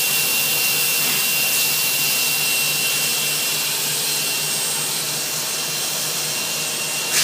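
A machine running steadily: an even hiss with a thin, steady high whine and a low hum.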